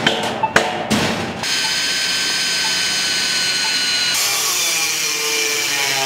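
Power tools at work: a few sharp clicks, then a steady high motor whine from about a second and a half in. About four seconds in the sound turns to a harsher grinding hiss: an angle grinder cutting metal.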